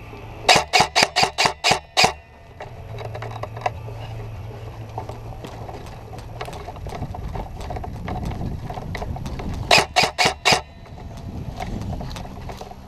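Airsoft gun firing two quick strings of shots, about four or five a second: seven shots starting about half a second in, then four more around ten seconds in. A low rumble runs between the strings.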